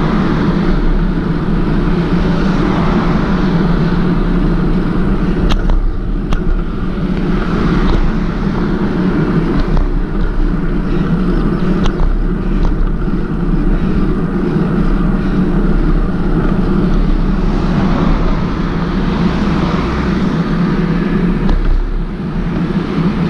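Steady rush of wind and road noise while riding a bicycle, with a few short, sharp clicks along the way.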